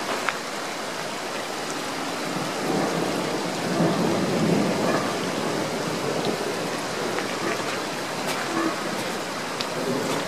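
Steady rain and storm runoff rushing through a flooded yard channel, with a low rumble swelling from about two and a half to five seconds in.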